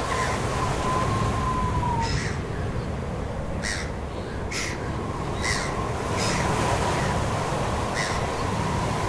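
Bird calls: short separate calls repeated about seven times at irregular spacing over a steady background noise, with a thin steady tone running underneath.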